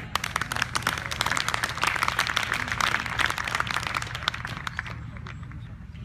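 Crowd of golf spectators applauding. The clapping builds about a second in and dies away by about five seconds.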